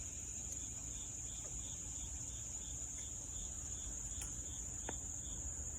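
Steady high-pitched insect trill, with a fainter chirp repeating about two or three times a second and a couple of faint clicks near the end.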